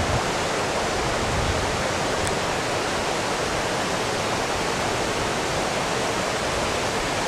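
Steady rushing of a river's water crashing over rocks, an even noise with no change.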